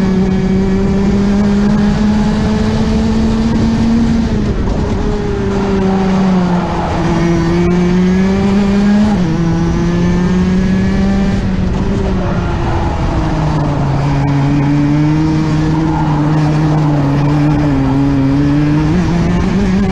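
Rotax Max 125cc two-stroke single-cylinder kart engine at racing speed, heard onboard: a high, steady engine note that drops in pitch several times as the kart slows for corners and climbs again as it accelerates out.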